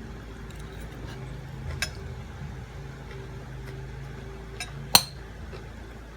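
Eating utensils clinking against a dish: a few sharp clinks, the loudest about five seconds in and a smaller one near two seconds, over a steady low hum.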